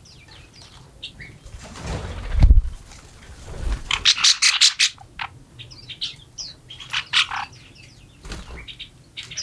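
Small songbirds chirping and calling in short notes, with a quick run of sharp chirps about four seconds in. The loudest sound is a low whooshing rumble about two seconds in that swells and cuts off suddenly, with a smaller one soon after and another near the end.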